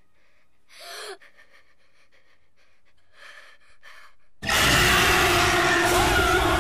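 A sharp, frightened gasp about a second in, then a few faint breaths and small rustles. About four and a half seconds in, a sudden, very loud horror-film jump-scare sound hits: a wavering shriek over a harsh wall of noise.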